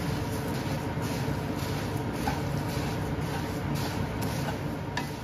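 Puffed rice and poha being stirred in a kadhai during slow roasting, with a few faint light scrapes and ticks over a steady low hum.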